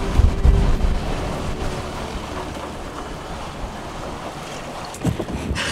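Gale-force wind of 30 to 35 knots and breaking waves around a sailboat at sea, a steady rushing noise. Heavy wind buffets the microphone in the first second, and a few knocks come near the end.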